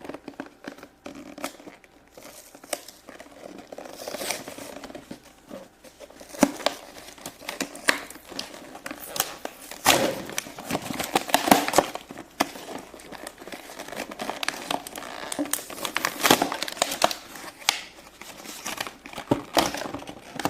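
Crinkly plastic toy packaging being handled and opened by hand, irregular crinkling and crackling with occasional tearing, louder about halfway through.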